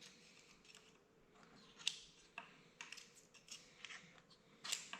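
Faint, scattered clicks and light taps of small metal parts being handled, about half a dozen spread over a few seconds, the clearest about two seconds in and just before the end.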